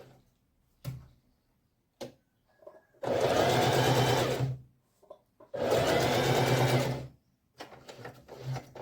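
Singer Heavy Duty 4432 sewing machine stitching in two runs of about a second and a half each, its motor humming under the fast stroke of the needle. A few short clicks come before the runs, and a softer stretch of machine sound follows near the end.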